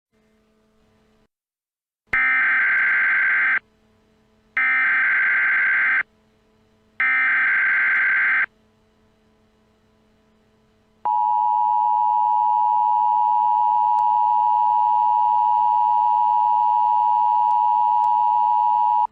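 Emergency Alert System signal: three short, loud bursts of the screeching SAME header data, each about a second and a half long with a second's gap between them. About eleven seconds in, the steady two-tone EAS attention signal starts and holds.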